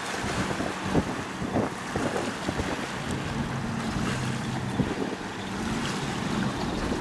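Motorboat engine running with a steady low hum as a boat passes through the inlet. Gusty wind buffets the microphone throughout, over the wash of waves.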